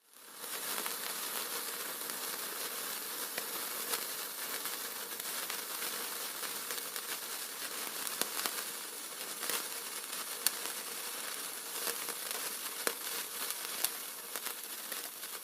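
Continuous dense crackling and hiss, peppered with sharp pops, which cuts off abruptly at the end.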